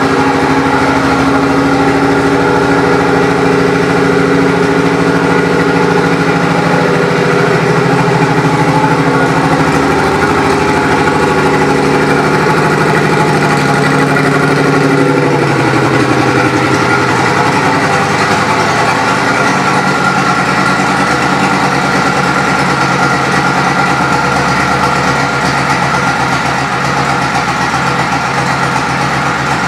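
A 2005 Suzuki Boulevard C50's 805 cc V-twin engine idling steadily. Its note changes slightly about halfway through.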